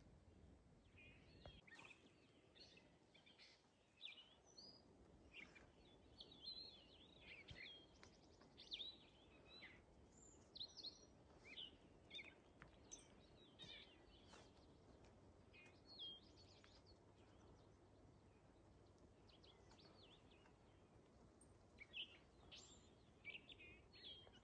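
Several songbirds singing faintly at dawn: many short chirps and trills, busiest through the first two-thirds and thinning out later, over a faint steady background hiss.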